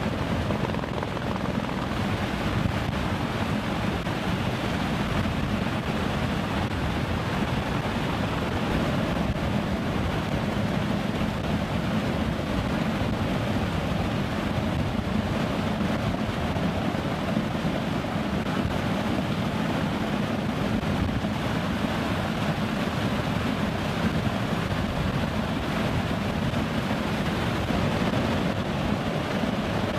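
Steady in-flight drone of aircraft engines and rushing air, heard from aboard the refuelling tanker aircraft, with no clear rotor beat.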